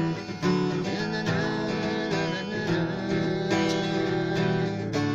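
Acoustic guitar strummed, steady chords carrying an instrumental passage between sung verses.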